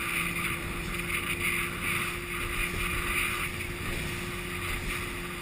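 Zippa speedboat's engine running steadily under way, with water rushing and hissing along the hull.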